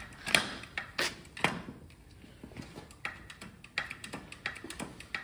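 Irregular sharp metallic clicks and knocks, the loudest in the first second and a half, from a hand-pumped hydraulic jack press pushing a bearing off an elevator motor rotor shaft.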